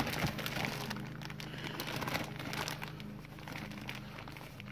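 Plastic topsoil bag crinkling and rustling as a hand digs through the soil inside it, a run of small irregular crackles over a steady low hum.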